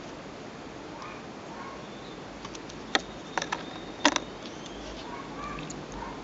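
A few small, sharp clicks of fine beading wire and beads being handled between the fingers as the wire is threaded back through a bead and pulled tight. There is one click about three seconds in, a quick cluster half a second later, and a louder double click about four seconds in, over a steady low hiss.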